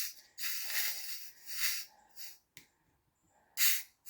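Gas hissing out of a heavily pressurised bottle of fermented water kefir as its cap is eased open, in bursts: one long hiss of about a second and a half, then shorter ones. The bottle is strongly over-carbonated from a long second fermentation.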